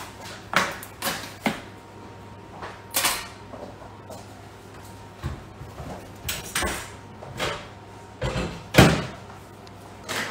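A series of short knocks and clatters of things being handled and set down in a kitchen, the loudest about nine seconds in, over a faint steady hum.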